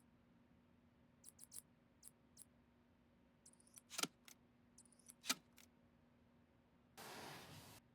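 Light, scattered clicks and taps of computer parts being handled during assembly, with two sharper clicks in the middle and a short rustle or hiss lasting under a second near the end.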